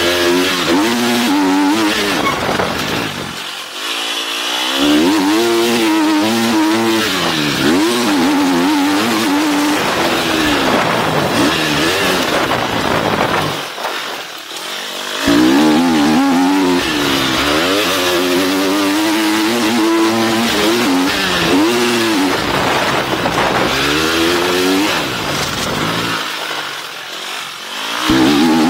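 Motocross bike engine revving hard, its pitch climbing and falling again and again as the rider works the throttle and gears, with the throttle shut briefly three times. A steady rush of wind on the camera underneath.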